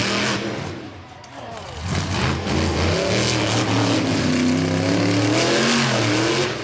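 A vehicle engine revving, its pitch rising and falling several times, quieter about a second in.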